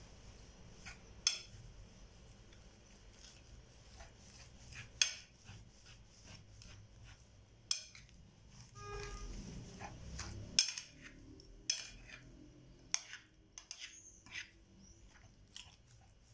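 Metal spoon clinking and scraping against a ceramic dish as it mixes mashed potato. There are sharp clinks every second or two, a longer stretch of about a second and a half that stops abruptly with a clink just past the middle, and quicker clinks bunched together near the end.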